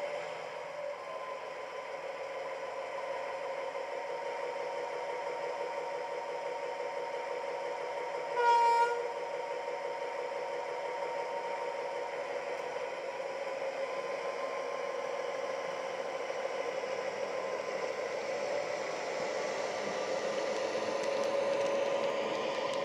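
Irish Railway Models A Class model diesel locomotive's factory EMD sound decoder playing through its small onboard speaker: a simulated diesel engine running steadily, with one short horn blast a little over a third of the way through. The engine sound grows a little louder near the end as the locomotive pulls its coaches away.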